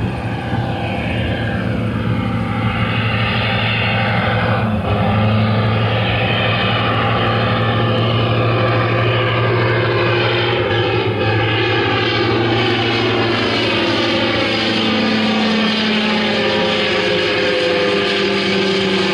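Piston-engined propeller aircraft droning steadily, with the tone slowly sweeping up and down as the plane passes.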